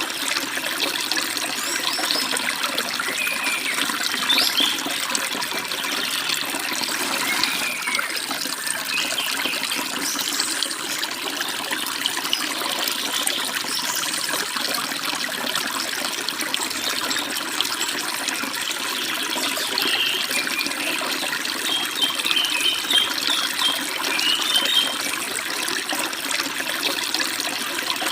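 Forest stream babbling steadily over rocks, with small birds chirping now and then and a quick run of chirps a little before the end.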